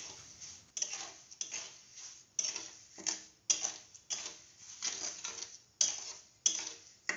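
Metal spatula scraping round an aluminium kadhai as it stirs wet sugar and water, repeated strokes roughly every half second: sugar being dissolved over heat to make syrup.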